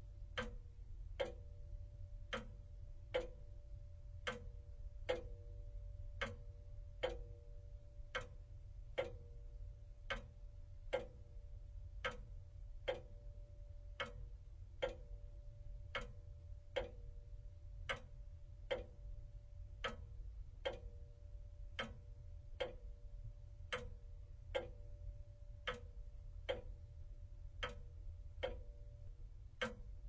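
Pendulum clock's escapement ticking steadily, about one tick a second, the beats alternating slightly stronger and weaker as tick-tock, over a faint low hum.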